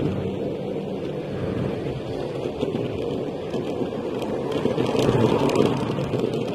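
Small 250 W electric kick scooter riding along an asphalt street: a steady rumbling drone from its small wheels and motor, swelling a little about five seconds in.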